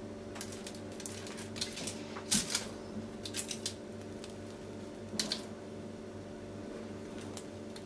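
Crisp sesame-coated crust of freshly baked simit poğaça crackling in scattered short crunches as hands tear and squeeze the soft bread, over a steady low hum.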